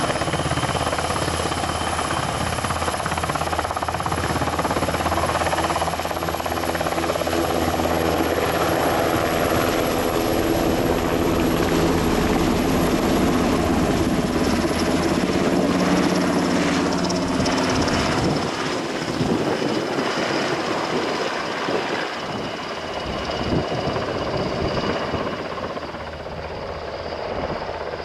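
Airbus NH90 TTH military helicopter's twin turboshaft engines and rotors running at high power as it lifts off, with a high steady turbine whine. The sound grows fainter over the last third as the helicopter flies away.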